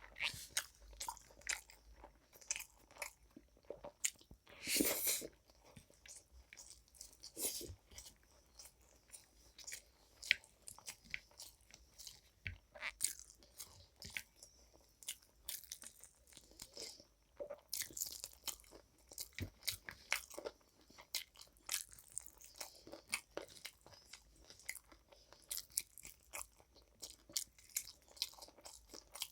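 A person chewing and crunching food close to the microphone, with irregular wet clicks and crackles and one louder, longer crunch about five seconds in.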